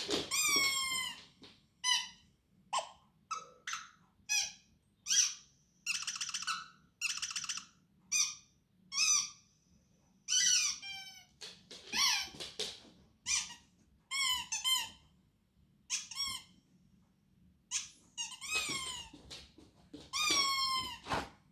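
Squeaky toy squeezed over and over in irregular bursts: short squeaks mixed with longer drawn-out ones, each high-pitched and often falling in pitch.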